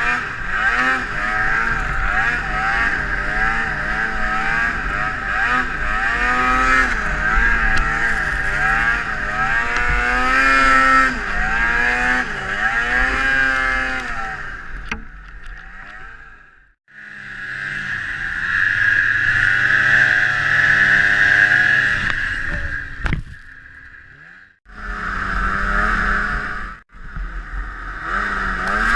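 Snowmobile engine running under way, its pitch rising and falling as the throttle is opened and eased. It cuts off abruptly several times in the second half and comes back.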